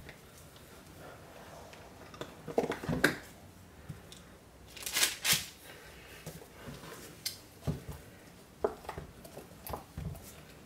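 Handling noises as soap cupcakes are pushed up out of their mold: soft rubbing and squishing of the mold against the soap, scattered light knocks, and two louder rustling bursts about five seconds in.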